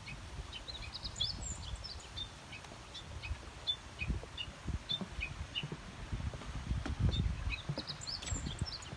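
Small birds chirping in short, repeated calls, with low thuds of footsteps on wooden planks underneath, the thuds heavier in the second half.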